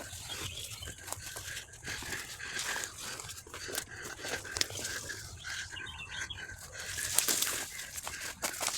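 Someone walking through dense undergrowth: leaves and branches rustling and twigs crackling in irregular steps, with a faint steady high tone underneath. The brushing grows louder and sharper near the end.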